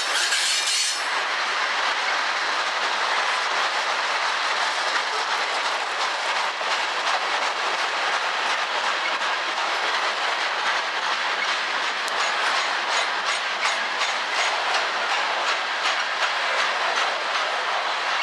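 Freight train of covered hopper cars rolling past: a steady noise of steel wheels on the rails with a repeating clickety-clack that grows more distinct in the second half.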